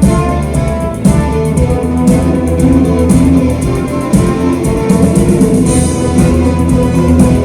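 Live instrumental symphonic rock: a guitar playing over a symphony orchestra, with a steady beat.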